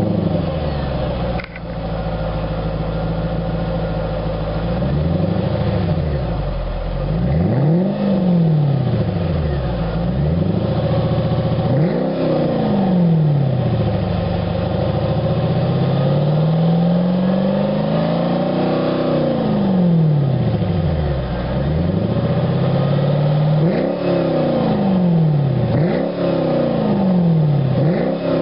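Mercedes SLK 55 AMG's 5.4-litre V8 heard at its quad exhaust tips, idling and then revved repeatedly while standing still: a string of sharp throttle blips that each rise and fall back to idle, with one longer, slower rev near the middle.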